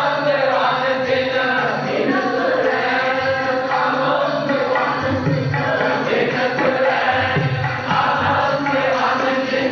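Sikh kirtan: a man singing a devotional hymn to harmonium, with tabla accompaniment. The harmonium's held chords run under the melody, and the tabla's deep bass strokes sound now and then.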